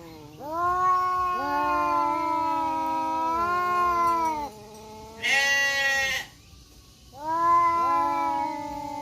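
Two tomcats caterwauling at each other in a fight standoff: long, drawn-out yowls from two voices at once, at different pitches. About five seconds in comes a sharper, higher cry, then a pause of about a second before the yowling resumes.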